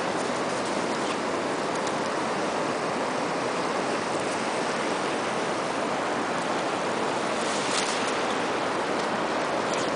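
Steady, unbroken noise of ocean surf, with a few faint clicks about three quarters of the way through.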